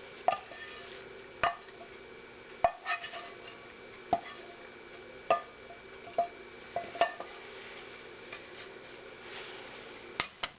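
Kitchen utensil clinking, tapping and scraping against a skillet as food is pushed out of the pan, about ten separate sharp knocks spread unevenly over several seconds.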